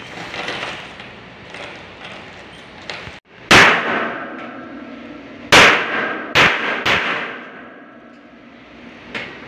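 Four hammer blows on the window air conditioner's metal housing, each ringing briefly. The first comes about three and a half seconds in, and the other three follow between about five and a half and seven seconds.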